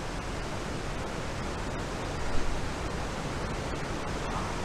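Waterfall in flood: a steady, dense rush of falling water, the creek swollen by hurricane rain far beyond its usual trickle. A short louder sound comes about halfway through.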